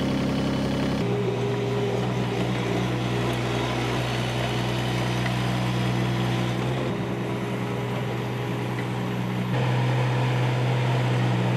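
Kubota U17 mini excavator's small diesel engine running steadily just after being started, with a slight step up in level near the end.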